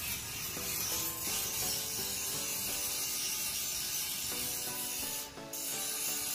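Steady crackling, rasping hiss of stick arc welding on a steel tubular railing, with a short break about five seconds in. Background music with a melody plays underneath.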